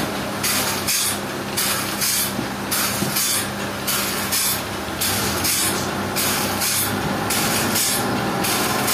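Sawmill machinery running: a steady motor hum under a loud hiss that swells and fades in even beats, roughly twice a second.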